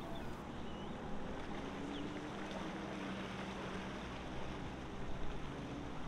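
Steady outdoor background noise with a distant engine humming low and steady, its pitch drifting slightly upward, and a few faint bird chirps.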